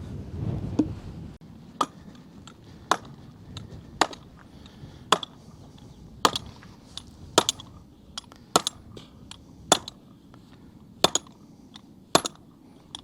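A fence pole being hammered into the ground: sharp strikes coming about once a second, around ten in all.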